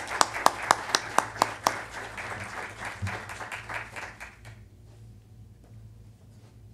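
Audience applause, with one person's louder, sharp hand claps standing out at about four a second for the first couple of seconds. The applause fades out about four and a half seconds in.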